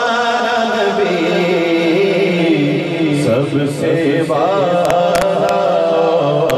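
A man singing an Urdu naat into a microphone, holding long, wavering notes. A few sharp clicks come in the second half.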